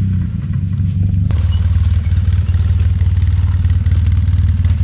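A vehicle engine running steadily with a low, even rumble. A click comes about a second in, and the rumble grows a little louder after it.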